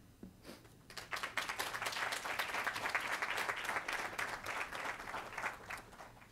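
Audience applauding. The applause starts about a second in and dies away near the end.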